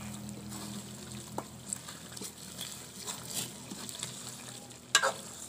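Long metal ladle stirring thick chicken karahi gravy in an aluminium pot: soft wet stirring with small scrapes and clinks, and a sharp metal knock near the end.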